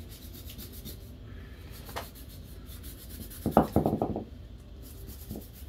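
Scraping crusted dirt off the housing of a used power steering gearbox: a soft, steady rubbing and scratching, with a single click about two seconds in and a short burst of quicker, louder strokes just past the middle.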